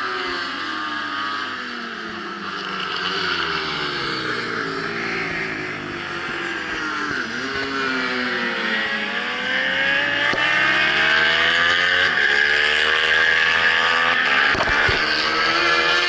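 Several racing motorcycles' engines on a road course, revving up through the gears and easing off as they pass, their pitch rising and falling and overlapping. The engines get louder about ten seconds in.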